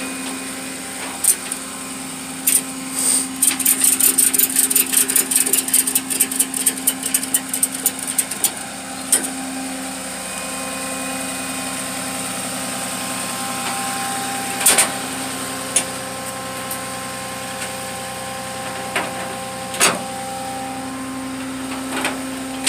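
Flatbed tow truck's engine idling steadily while a wheel tie-down strap is ratcheted tight: a quick run of ratchet clicks from about three to nine seconds in, then a few single clicks.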